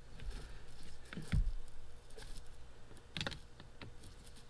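Light clicks and taps of a tool on metal parts as screws on the carburetor are tightened. There is a dull knock about one and a half seconds in and a sharper click a little after three seconds.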